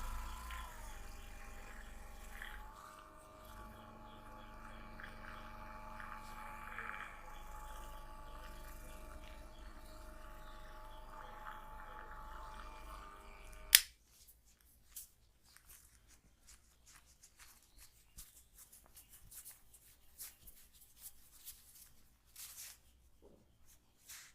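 A steady drone of several held tones over a low rumble, cut off by a sharp click about fourteen seconds in. After that it is much quieter, with faint scattered clicks and rustling of hands working on skin.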